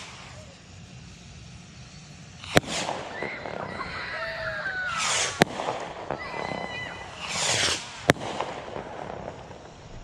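Bottle rockets launching one after another from a rack, set off in turn by a slow-burning cake fuse. Each lift-off is a short whoosh, and three sharp pops from the rockets' bursts come roughly two and a half seconds apart.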